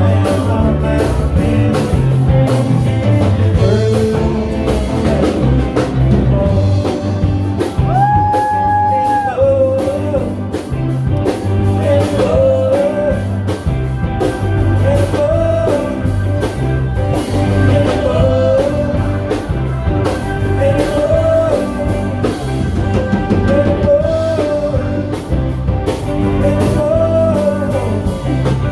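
Live rock band playing, with bass and drums underneath and a melodic lead line in short phrases that recur about every two seconds.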